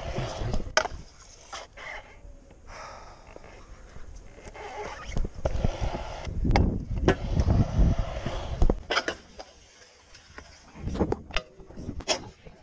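Stunt scooter rolling over concrete, its wheels making a steady rumble, with several sharp clacks of the deck and wheels hitting the ground and park edges as tricks are landed.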